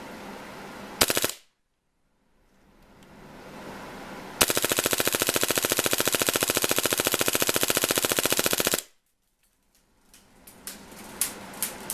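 HPA-converted KWA MP7 gas-blowback airsoft SMG firing: a short burst about a second in, then a long rapid full-auto burst of about four seconds at an even rate, followed by a few scattered clicks near the end.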